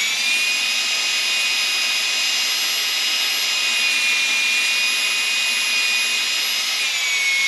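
Cordless drill running with a steady high-pitched motor whine as it bores a 5/64-inch pilot hole into a wooden rifle stock. It spins up right at the start, and its pitch sags slightly partway through.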